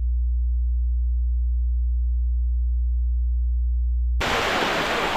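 A steady, very deep single-pitch electronic hum for about four seconds, then a sudden cut to the even rushing of a waterfall.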